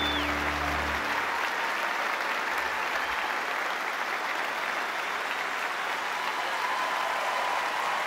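Large theatre audience applauding steadily. The live band's final held chord sounds under the applause and cuts off about a second in.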